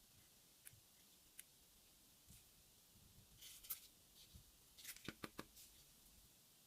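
Faint handling sounds of a phone and its packaging: scattered light clicks and brief rustles, with a quick cluster of three or four clicks about five seconds in.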